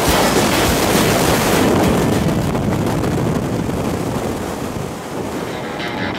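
Steady rush of freefall wind blasting over the camera's microphone during a skydive.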